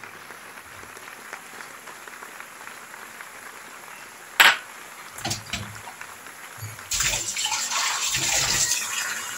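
Ground pork cooking faintly in a pan, with a sharp knock about four and a half seconds in. From about seven seconds in, water runs and splashes as water is being readied to add to the pan.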